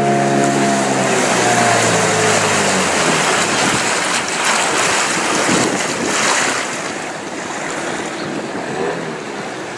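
A boat motor runs with a steady note, then drops slightly in pitch and fades out about three seconds in. Rushing, splashing water and wind on the microphone follow.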